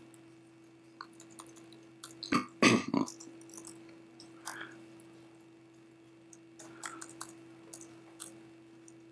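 Scattered, faint clicks of typing on a laptop keyboard over a steady low electrical hum, with one brief louder noise about two and a half seconds in.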